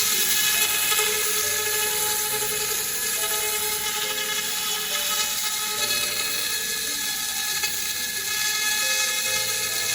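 Handheld fiber laser cleaning machine running: a steady hiss with a fixed high whine, and mid-pitched tones that change step by step every second or so.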